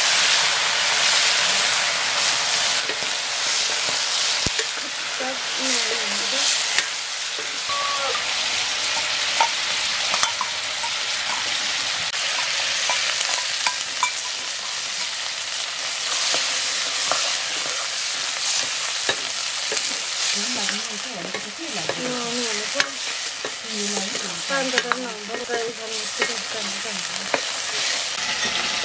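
Meat frying hard in a black iron wok over a wood fire, a dense sizzle that is loudest at the start, with a metal ladle stirring and scraping through it.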